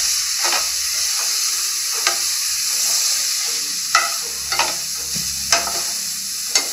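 Grated carrot sizzling in ghee in a non-stick pan, stirred with a wooden spatula that scrapes and knocks against the pan about once a second.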